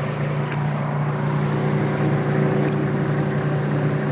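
Car engine idling steadily, a low even hum with no change in speed.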